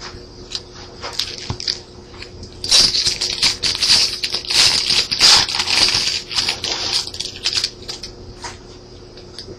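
Glossy trading cards being handled and slid against one another as a stack is flipped through, with light clicks and taps. A denser stretch of rustling runs from about three to seven seconds in.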